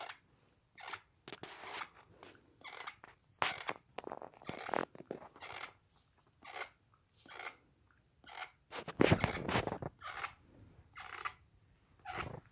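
A sleeping man grinding his teeth (bruxism): a string of short, irregular, gritty crunching grinds, the loudest about nine seconds in.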